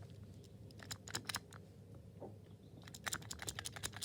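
Dewhurst US90 vandal-resistant lift push button pressed over and over, giving sharp clicks in small groups, with the densest run near the end.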